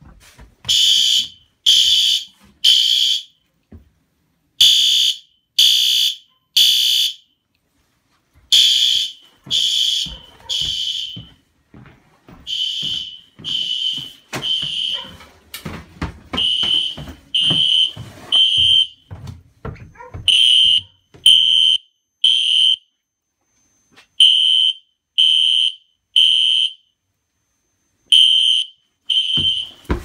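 Fire alarm system sounders sounding the temporal-three evacuation pattern during a walk test: three loud, high beeps about a second apart, then a pause, repeating about every four seconds.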